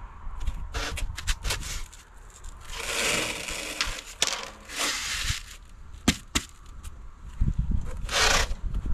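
EPS insulation board being handled and cut on a guillotine cutter: sharp clicks and knocks with three scraping bursts, about three, five and eight seconds in.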